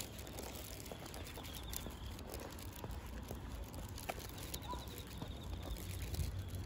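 Quiet walking sounds: light footsteps and a carried plastic bag rustling, over a faint outdoor hiss.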